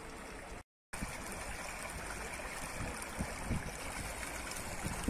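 Sewer water gushing up out of a flooded manhole and rushing away in a steady flow: the sewer main is overloaded by the rain and backing up through the manhole. The sound cuts out completely for a moment just under a second in.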